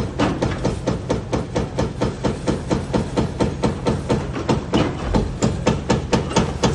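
Excavator-mounted hydraulic breaker hammering at a steady rate of about five blows a second, with the carrier's diesel engine running underneath.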